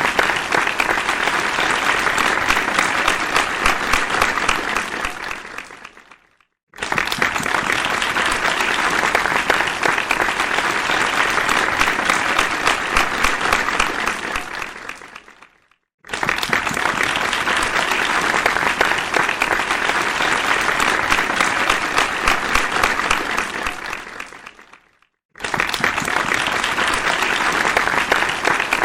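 Audience applause, many hands clapping densely. It fades away to a moment of silence and then starts again at full strength, three times: a looped applause sound effect.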